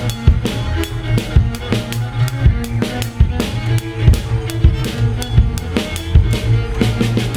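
Ensemble music with a drum kit: kick, snare and rim hits at a regular beat over sustained low bass notes and held pitched tones.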